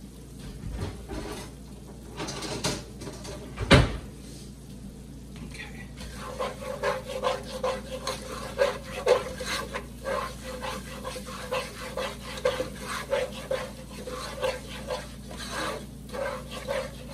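Plastic slotted spatula stirring and scraping a browning butter-and-flour roux in a nonstick pot, about two strokes a second. A sharp knock comes about four seconds in, before the steady stirring begins.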